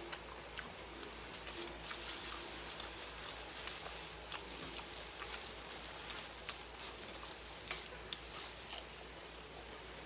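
Many small crackles and crinkles from a disposable plastic glove and crispy fried boneless chicken being handled and picked apart on a plate, with close-up chewing.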